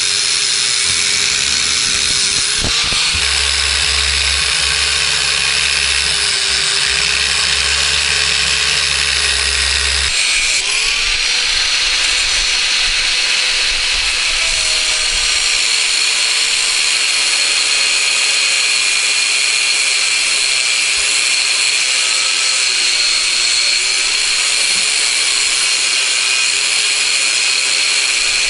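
Electric angle grinder with a cut-off wheel running continuously as it cuts through a steel CV axle shaft to shorten it. A steady high whine whose pitch wavers a little as the wheel bites into the metal.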